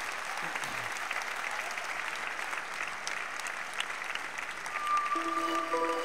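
A large audience applauding, a steady mass of many hands clapping. Near the end, held musical notes of the closing outro music start over the clapping.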